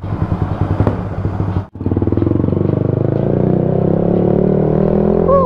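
Yamaha XSR155's single-cylinder four-stroke engine running, breaking off briefly about a second and a half in. It then pulls away, its note rising steadily as the motorcycle gathers speed.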